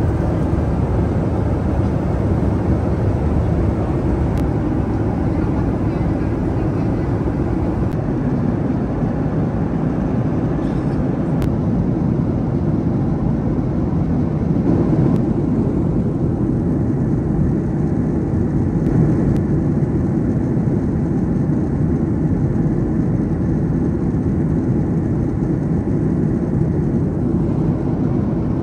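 Steady cabin noise of a Boeing 737-500 airliner in flight: a low, even rush of engines and airflow heard from inside the cabin.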